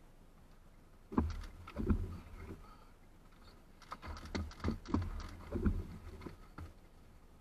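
Scattered raindrops tapping on the car's windshield and roof, heard from inside the cabin: about ten irregular taps, starting about a second in, over an otherwise quiet background.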